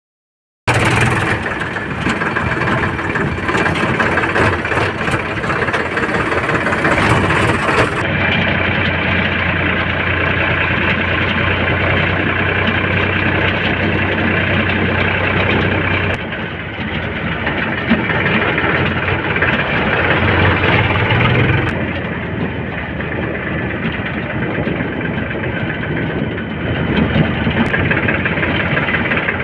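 Diesel engines of a JCB 3DX backhoe loader and a Sonalika tractor running steadily as the backhoe loads mud. The sound shifts abruptly about 8, 16 and 22 seconds in.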